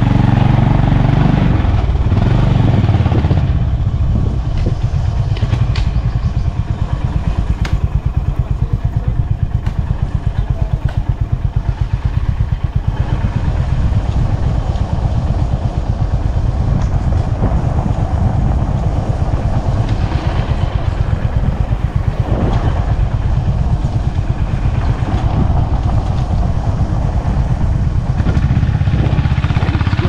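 Motorcycle engine running steadily while riding, heard from the bike, with a fast even pulsing low down.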